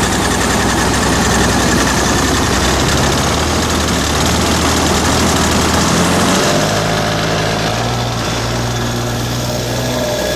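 RC model airplane engine and propeller running steadily, its pitch shifting about two thirds of the way through.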